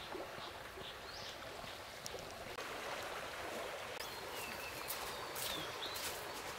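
Forest ambience: a steady soft hiss with scattered faint bird chirps, the hiss stepping up a little about two and a half seconds in.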